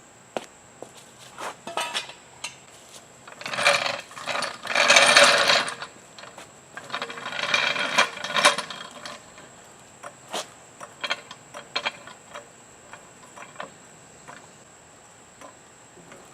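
Metal hand tools at work: three clicking, rasping bursts of one to two seconds between about four and nine seconds in, among scattered sharp clicks and knocks.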